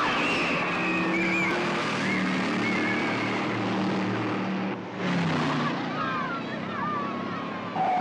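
Film car-chase sound: cars speeding with engines running hard under a constant roar, and repeated wavering tyre squeals.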